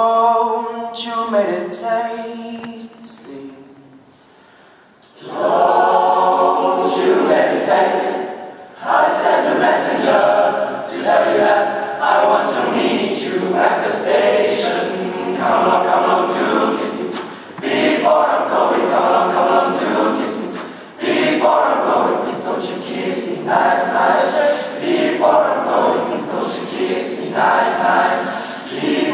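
Boys' choir singing unaccompanied. A single voice sings a short phrase, and after a brief pause the full choir comes in about five seconds in, singing in short phrases.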